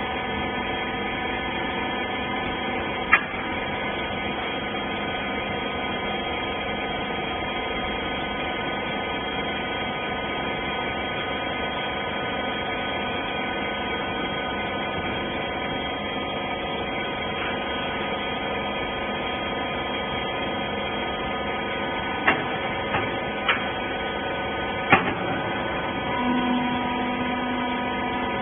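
Hydraulic rag baler's power unit running steadily, a motor and pump hum holding several fixed tones, with a few sharp clicks or knocks about three seconds in and again later; a further low tone joins near the end.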